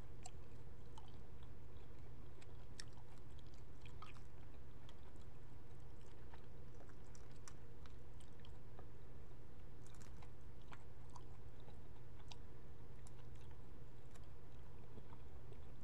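Sparse small clicks and crackles of a cooked jumbo shrimp's shell being peeled off by hand, and of shrimp being chewed, over a steady low hum.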